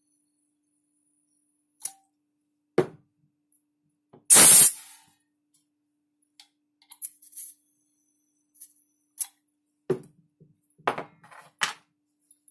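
Freshly charged KJ Works M4 gas-blowback airsoft magazine, its o-rings just replaced: a single loud, half-second hiss of gas vented from it about four seconds in, between sharp clicks and knocks of the plastic magazine being handled. It is set down on the wooden bench with several knocks near the end.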